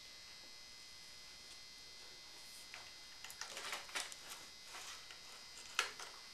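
Crinkled aluminium foil rustling and crackling in short bursts as a roasted ham is levered out of it with a meat fork, with one sharp click near the end.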